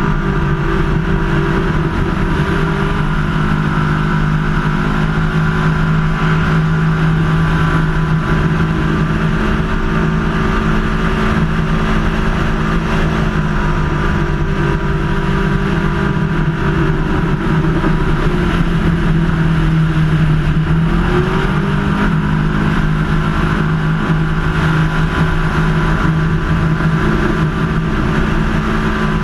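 Superclass ski race boat's engine running flat out at racing speed, heard from on board with a rush of wind and water. The engine note stays steady but dips briefly a few times, about three seconds in, around the middle, and again about two-thirds of the way through.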